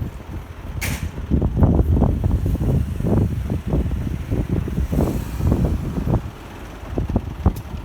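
Wind buffeting the microphone in uneven low rumbling gusts, strongest through the middle and easing near the end. A short sharp click about a second in.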